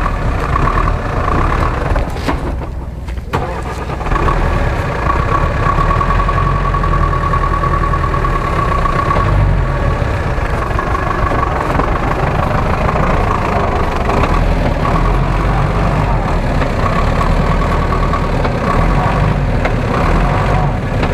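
GAZ-66 truck's engine running steadily while the truck sits stuck deep in mud, with a high, steady whine that comes and goes over the engine. The sound dips briefly about two to four seconds in.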